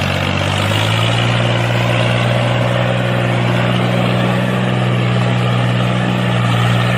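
A motor running steadily, giving a constant low hum over a hiss.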